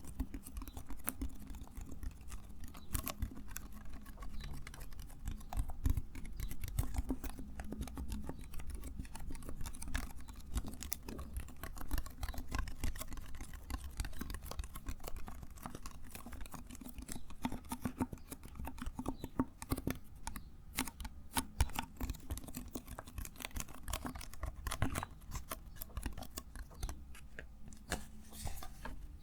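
Rapid, irregular small clicks and scratches from something handled close to the microphone, in a dense, continuous run.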